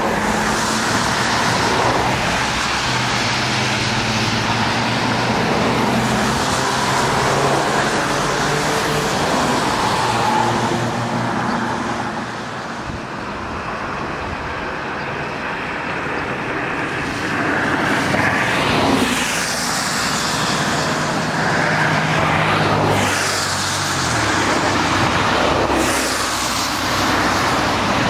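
Road traffic on a wet road: a steady wash of tyre hiss and engine drone, with several vehicles passing close by in the second half, each swelling and fading.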